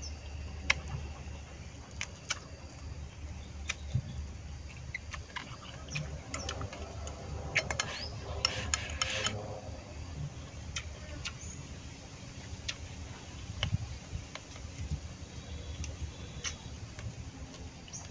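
Eating sounds: scattered sharp clicks of chopsticks against a ceramic bowl and chewing of grilled field rat, with a quick flurry of clicks a little past the middle.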